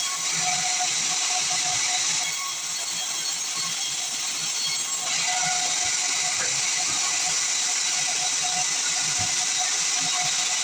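Band sawmill cutting through pine, a steady high-pitched hiss that eases for a few seconds about two seconds in and then picks up again.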